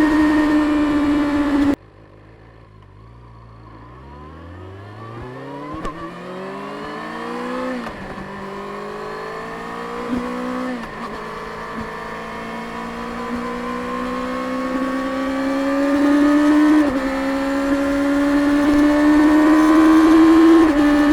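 Stock 2024 Kawasaki Ninja ZX-6R's 636 cc inline-four through its stock exhaust. It runs at high, steady revs, and the sound drops off abruptly about two seconds in. The engine then pulls from low revs, the note rising through the gears with upshifts at about eight, eleven, seventeen and twenty-one seconds, getting louder as it goes.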